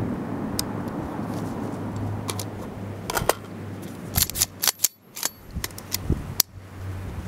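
Metallic clicks and clacks of an AR-pattern pistol being unloaded and cleared by hand, its action worked in a quick run of sharp clicks from about three seconds in until near the end. A wind rumble on the microphone fills the first few seconds.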